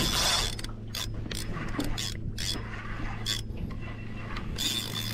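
Spinning fishing reel being cranked, its gears whirring and rasping in uneven spurts as line is wound in on a hooked fish.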